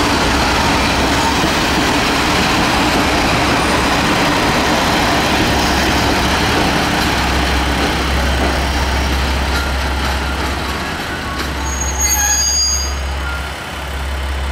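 KiHa 47 diesel railcars rolling past and slowing into the platform, the wheel and diesel engine noise easing after about seven seconds over a steady low rumble. A brief high-pitched squeal comes near the end as the train comes to a stop.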